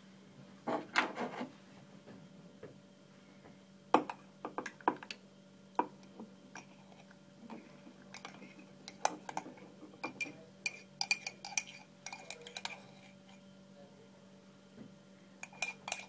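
Crockery being handled: a ceramic mug and milk jug knock and clink on the counter. Around the middle there is a run of quick, ringing clinks of cutlery against crockery. A steady low hum runs underneath.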